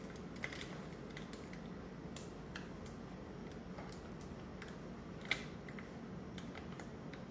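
Light, scattered clicks and taps of a wooden spatula scraping melted chocolate out of an enamel pot into a plastic piping bag, with one sharper tap a little past five seconds in, over a steady low background hum.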